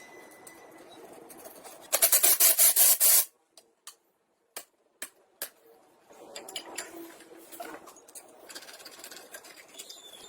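A quick run of loud rasping strokes by a hand tool scraping a part, about a second long, then a few sharp clicks and quieter scraping.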